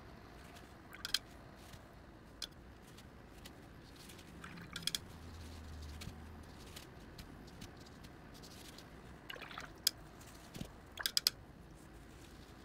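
Soft taps and dabs of an ink brush and a crumpled tissue against wet paper, coming in a few short clusters over a faint steady background.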